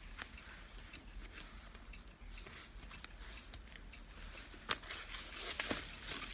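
Faint handling sounds of a fabric bag strap and its metal clip: soft rustling and small clicks, with one sharper click about three quarters of the way through, followed by a burst of rustling as the strap is pulled out.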